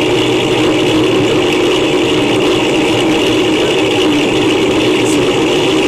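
Steady riding noise from a camera mounted on a moving bicycle: a continuous mechanical hum of tyres and drivetrain on the road that holds level throughout.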